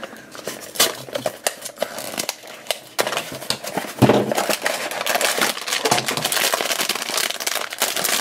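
A small cardboard blind box being handled and its flap opened, with scattered light clicks and scrapes. From about four seconds in, a steady crinkling as the foil bag inside is handled and opened.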